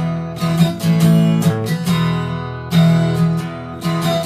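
Acoustic guitar strummed, chords ringing between sung lines, with several sharp strokes.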